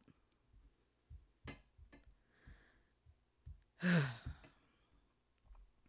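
A woman sighs about four seconds in: a breathy exhale with a brief voiced sound dropping in pitch. A softer breath comes before it, along with a few faint clicks and low taps from a laptop keyboard and desk.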